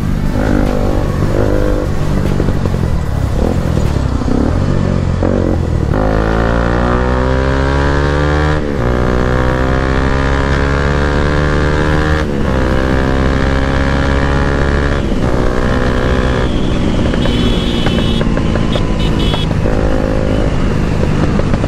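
Bajaj Pulsar NS200's single-cylinder engine accelerating through the gears: its exhaust note climbs in pitch, drops at each upshift, and climbs again.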